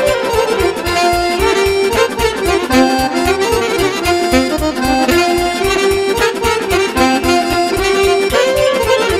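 Romanian folk party music (muzica de petrecere), an instrumental passage with an accordion playing the melody over a fast, steady beat.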